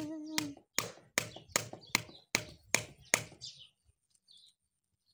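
A brief pitched tone, then a run of about eight sharp, evenly spaced taps, roughly two and a half a second, that stop a little over three seconds in.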